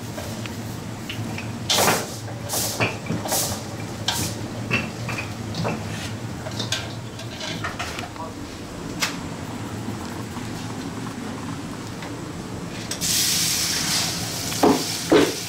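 Metal clinks and clatter of a slotted spoon against a wok and steel colander as fried samosas are lifted out, over a steady low hum. Near the end, a loud rushing hiss for about two seconds as rice is poured from a plastic tub into a steel pot.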